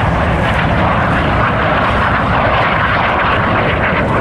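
Piston-engined propeller warbird flying at an airshow, a loud steady engine drone.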